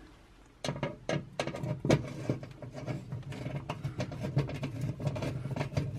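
Small screws being turned in by hand with a magnetic screwdriver at the back of an oven cavity: a run of light metallic clicks over a low steady hum, starting about half a second in.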